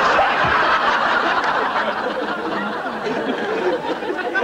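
Studio audience laughing at a stand-up punchline, many voices together, loud at first and easing slightly toward the end.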